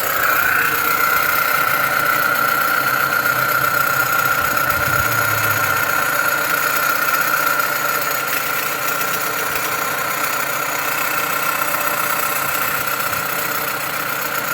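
Idling engine with a steady high-pitched whine from the alternator, a racket the mechanic traces to the alternator, where it is loudest at the rear housing by the connector.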